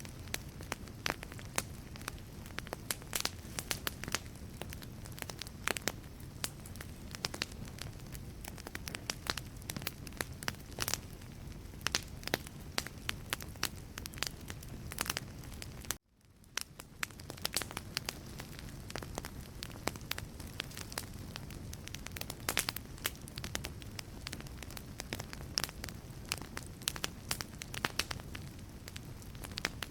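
Wood fire in a fireplace crackling, with frequent sharp pops and snaps over a low steady rumble of the flames. About sixteen seconds in, the sound cuts out abruptly and fades back in within a second.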